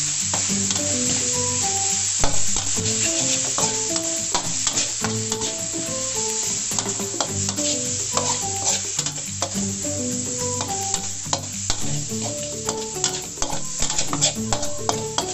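Pork slices and holy basil leaves sizzling in a steel wok as a metal spatula stirs and scrapes them, with frequent clicks of the spatula against the pan. The heat has just been turned off and the leaves are wilting. Background music plays a melody underneath.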